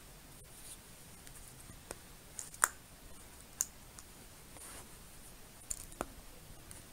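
Scattered sharp plastic clicks and taps from a waterproof phone case being pressed and snapped onto a Samsung Galaxy S3, about half a dozen spread over several seconds, the loudest about two and a half seconds in.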